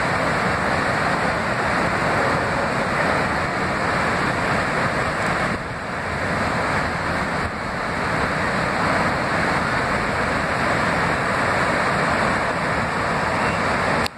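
River in flood rushing past in a loud, steady torrent of brown floodwater after heavy rains, dipping briefly twice partway through.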